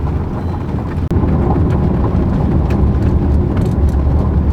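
Car driving along a road: steady low tyre and engine rumble with scattered sharp ticks, getting louder about a second in.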